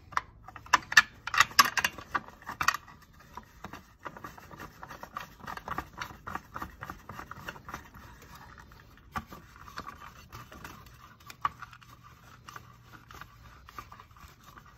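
Close-up handling noise: a quick run of sharp clicks and rattles in the first few seconds, then softer scattered clicks and scrapes, as hands refit the plastic differential-cable cover and its bolt. A faint steady hum sits underneath.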